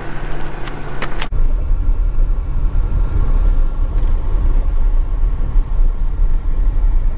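Car driving slowly over a gravel dirt road, heard from inside the cabin: a steady low rumble of engine and tyres. It begins abruptly about a second in, after a short stretch of an engine idling with a steady low hum.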